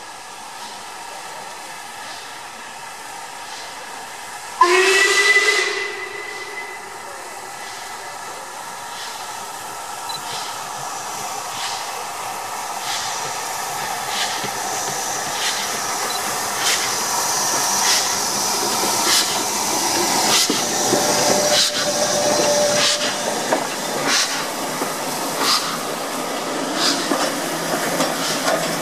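LMS Stanier Class 5 'Black Five' 4-6-0 steam locomotive 44806 sounds one short blast on its whistle about five seconds in. After that, its steady exhaust beats and hiss of steam grow louder as it approaches with its train of coaches and passes close by.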